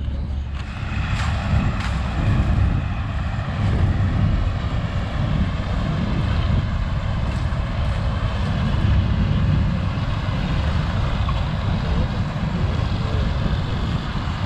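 A vintage combine's engine and threshing machinery running steadily while harvesting corn.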